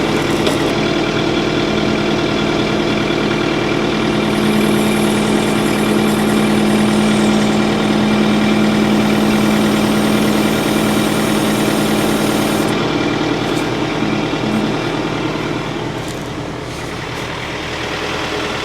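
Tractor engine running steadily while the hydraulics curl the backhoe bucket, with a steady hum that holds for about ten seconds as the hydraulics work and then eases.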